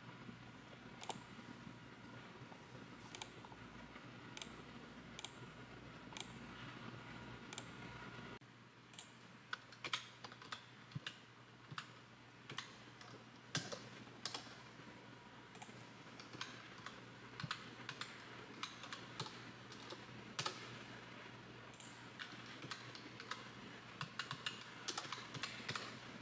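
Computer keyboard typing: scattered light key clicks over a faint steady hum. About eight seconds in the background changes and the clicks come louder and more irregular.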